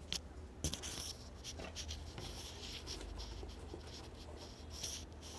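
Scratchy rubbing and handling noise, with a couple of sharp clicks in the first second, like objects being moved about against a hard surface.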